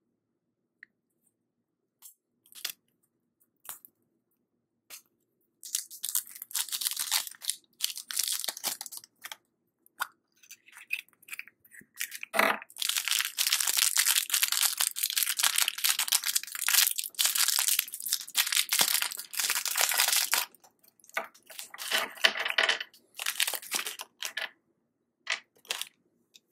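Wrapper on a candy surprise egg being crinkled and torn open by hand, in stretches of crackling with one sharp snap about twelve seconds in.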